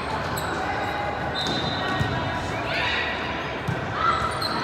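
Indoor volleyball play echoing in a large sports hall: a few ball thuds and short sneaker squeaks on the court floor over a steady background of voices from players and spectators.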